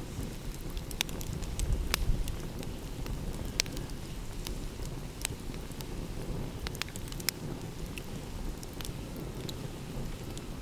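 Wood fire crackling, with irregular sharp pops and snaps, over a steady low rumble.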